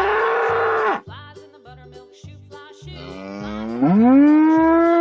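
A bull's rough bellow lasting about a second. About three seconds in comes a long cow moo that rises in pitch, holds steady and then breaks off. Children's background music with a steady beat runs underneath.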